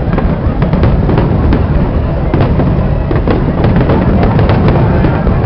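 Large aerial fireworks display with many shells bursting at once: a fast, unbroken run of sharp bangs and crackles over a constant low rumble.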